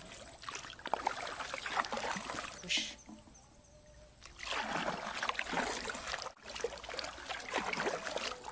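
Kayak paddle strokes splashing through river water, with water trickling off the blade between strokes. There is a lull of about a second and a half in the middle before the strokes start again.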